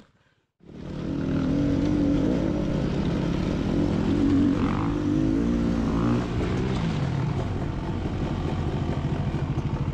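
Dirt bike engine running under way, its pitch rising and falling with the throttle, settling into an even low pulsing near the end. It comes in about half a second in.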